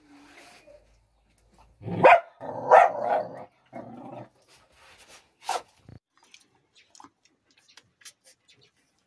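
Dog barking: a sharp bark about two seconds in, then a longer drawn-out bark, and a couple more barks by about six seconds in.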